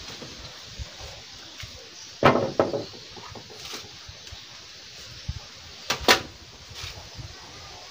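Two pairs of hollow knocks on bamboo poles as the pen's bamboo frame is worked on by hand, one pair a couple of seconds in and another about four seconds later.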